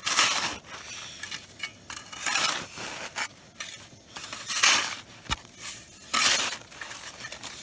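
Snow shovel scooping loose snow and dropping it into a hole over a buried pot. Four main scoops about two seconds apart, with a sharp click about five seconds in. The snow goes in loosely, not packed down.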